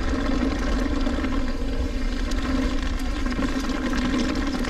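Mountain bike riding down a muddy trail: steady tyre and drivetrain noise with a constant buzz and many small clicks and rattles, over wind rumble on the microphone.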